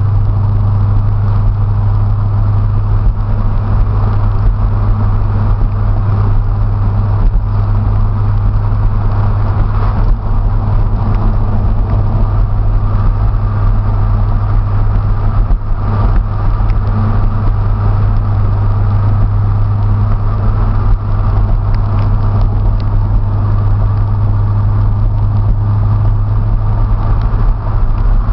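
Twin-turbocharged 2005 Chevrolet Corvette C6's V8, heard from inside the cabin as a steady low drone with road noise while cruising at a constant speed, without revving up or down.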